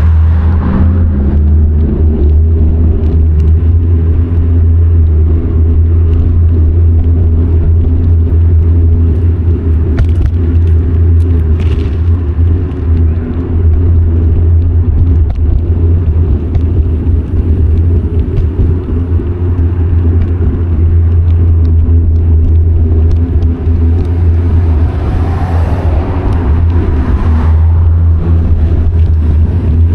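Steady low rumble of wind and road noise on an action camera riding on a moving bicycle. A passing car swells and fades near the end.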